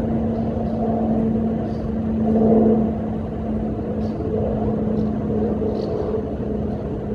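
A steady low rumble with a constant mechanical hum running under it, and faint short high chirps coming and going above it.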